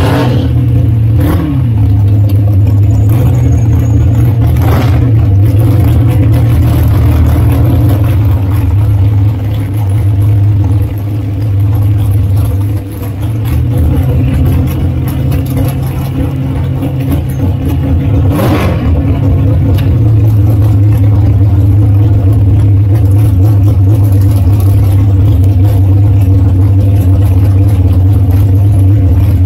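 Dragster engine idling steadily, heard from on board the car, with three short throttle blips.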